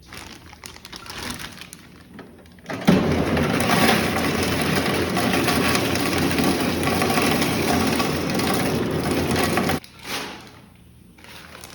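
Hotel ice machine dispensing ice cubes into a bag: after some quieter handling sounds, a loud, steady clatter starts about three seconds in and cuts off sharply after about seven seconds.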